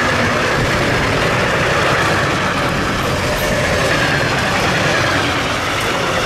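Wagons of an intermodal freight train carrying containers and semi-trailers rolling past on the rails: a steady rush of wheel-on-rail noise. The end of the train goes by near the end.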